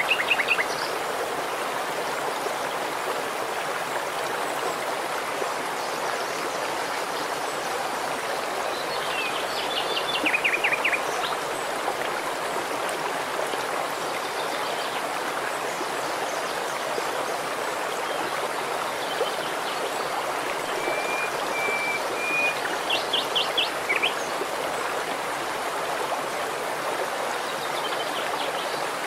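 Shallow rocky stream flowing steadily over stones. Birds chirp a few times above it: short calls at the start, a burst around ten seconds in, and a held whistled note followed by a quick trill a little past twenty seconds.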